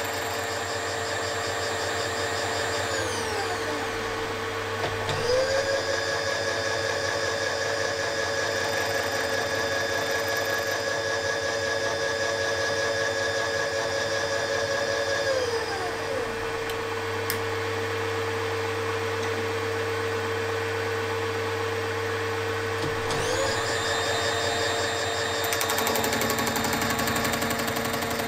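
Milling machine running steadily while cutting gear teeth, with a second motor, the table's power feed, whining alongside. The power-feed motor winds down to a stop and starts up again twice.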